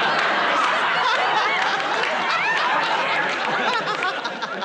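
Studio audience laughing, many voices at once, easing off a little near the end.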